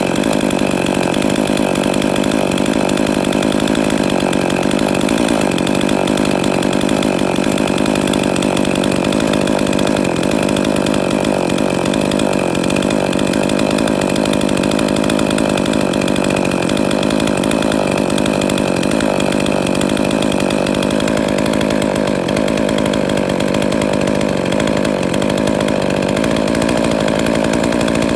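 Ported Husqvarna 262XP two-stroke chainsaw running steadily for the whole stretch, on its first run after reassembly.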